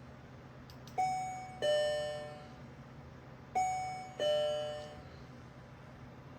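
A two-tone ding-dong chime, a higher note followed by a lower one, sounds twice, each note ringing out and fading.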